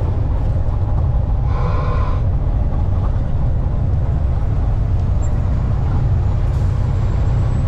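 Western Star semi truck's diesel engine and road noise heard inside the cab while cruising: a steady low drone. A brief higher tone sounds for under a second about a second and a half in.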